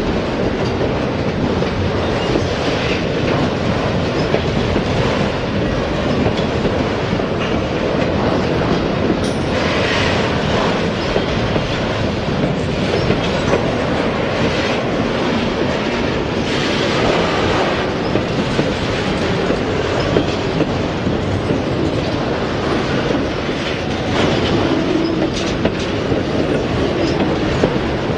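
Freight train of autorack cars rolling past close by: a steady, loud rumble of wheels on rail with a rhythmic clickety-clack over the rail joints.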